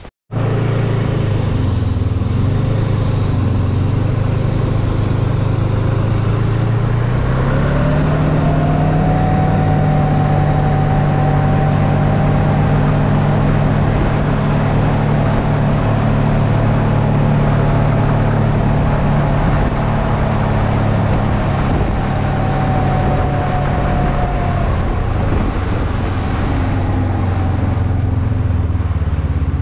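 Snowmobile engine running under way over snow, its pitch rising as it speeds up about seven seconds in, holding steady, then easing off a little near the end.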